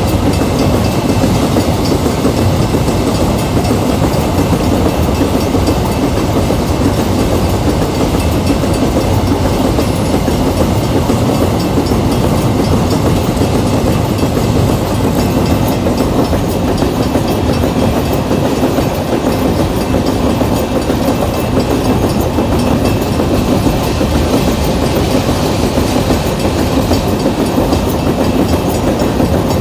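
Empty iron-ore freight train rolling steadily, its wheels clacking over the rail joints.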